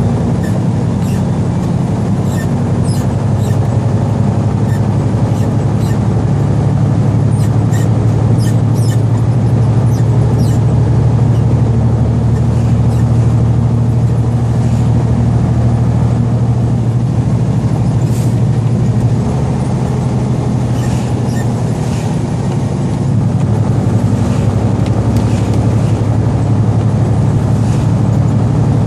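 Semi-truck engine running steadily at road speed inside the cab, with a deep hum and road noise; the engine note dips slightly about two-thirds in and then picks up again. Faint scattered ticks are heard throughout.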